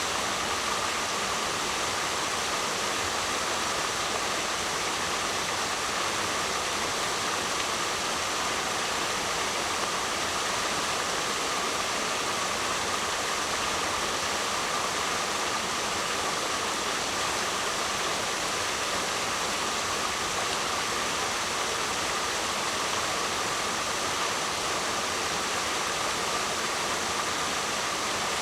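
Waterfall: a steady, unbroken rush of falling water, even throughout with no splashes or changes.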